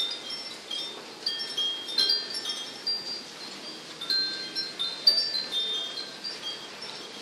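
Wind chimes ringing irregularly as gusts of storm wind shake them: many short, high, overlapping notes over a steady hiss.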